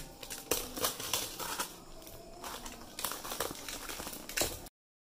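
Packaging crinkling and rustling in irregular handfuls as a shipping package is opened by hand, cutting off suddenly near the end.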